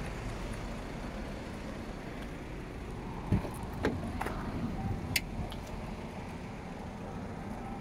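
Audi A5 coupé door being opened: a thump of the latch letting go about three seconds in, then a few clicks and knocks as the door swings open, over a steady hum of traffic.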